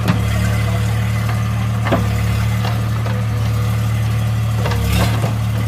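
Swaraj 855 FE tractor's three-cylinder diesel engine running steadily while it powers a backhoe attachment, with a few short sharp knocks at the start, about two seconds in and near the end.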